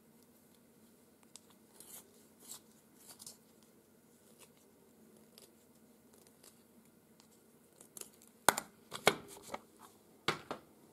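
Pastel pencil scratching short, quick strokes on paper, sparse and faint at first, with a cluster of louder, sharper strokes near the end.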